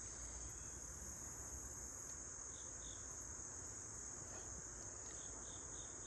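Steady, unbroken high-pitched chorus of crickets, with a few faint short chirps in the second half.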